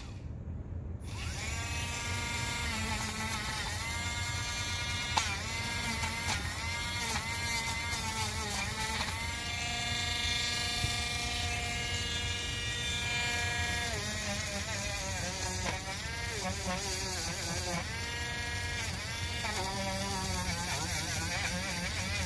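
Handheld rotary tool (Dremel-type) grinding old glue off the bead of an RC car tire: a high motor whine that starts about a second in, its pitch dipping again and again as the bit bites into the rubber and glue and then rising back.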